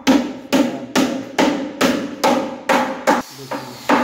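Carpenter's hammer striking the wooden frame of a desk-and-shelf unit, a steady run of about eight blows at roughly two a second, each ringing briefly, with a short pause near the end.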